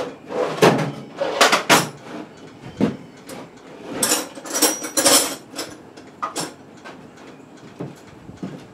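Metal hand tools clanking and rattling as someone rummages for them: a string of sharp knocks and clinks, a few with a short metallic ring about four to five seconds in.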